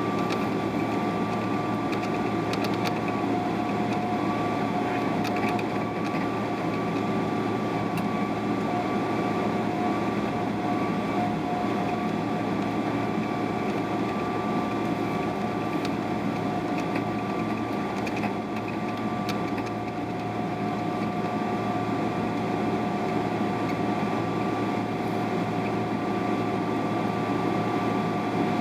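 Steady cabin noise inside a Boeing 777-300ER airliner: an even hum of engines and air with two thin steady tones over it, holding level throughout.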